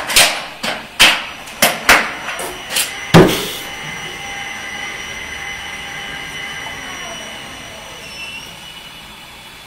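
A dog's paws knocking sharply against a home elevator's sliding door, about six hits in the first three seconds, the last and heaviest as it drops back down. After that, a steady mechanical hum with a faint thin whine from the elevator running.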